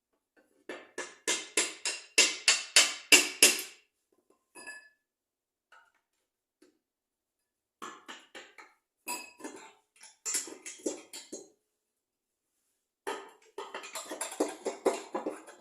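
Metal tools knocking and clinking against metal in quick runs of sharp, ringing strokes, several a second, in three bursts with silent pauses between them: work on taking apart an automatic transmission.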